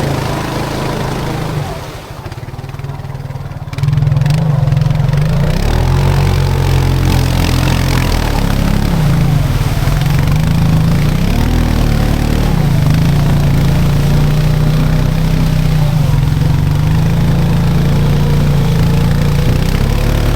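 ATV engine running close by under throttle. It drops lower about two seconds in, picks up sharply near four seconds, then keeps pulling with the pitch rising and falling as the four-wheeler is driven through a deep mud hole.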